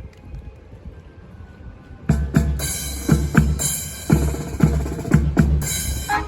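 Live band's bass drum and snare drum starting a steady marching groove about two seconds in, after a couple of seconds of faint outdoor background noise.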